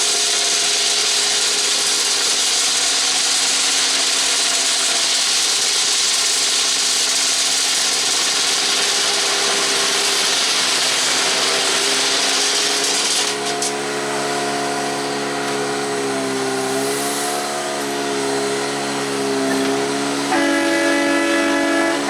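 Diesel-powered track maintenance machinery working in a railyard: a loud, steady hiss for the first half, then an engine whose pitch wavers up and down. About 20 seconds in, a louder, richer set of tones cuts in suddenly.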